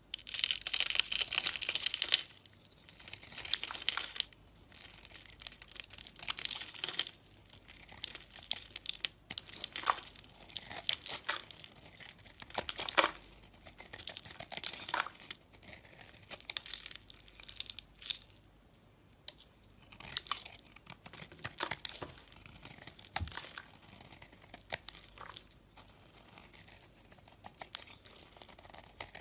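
Dry soap being cut and crumbling, a crisp crackling and scraping in irregular bursts, densest in the first two seconds.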